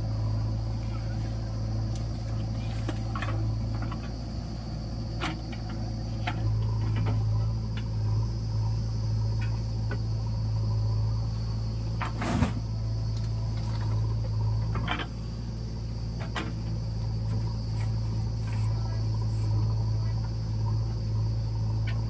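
Steady diesel engine drone from the idling Mahindra 475 DI tractor and the working JCB 3DX backhoe loader, with scattered knocks and clatters as the backhoe's bucket tips soil into the tractor trolley, the loudest about twelve seconds in.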